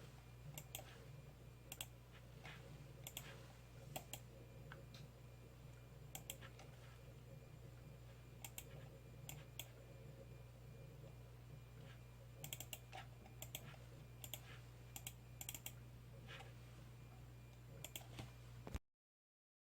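Scattered clicks of a computer mouse and keyboard, many in quick pairs, over a steady low hum. The sound cuts off abruptly about a second before the end.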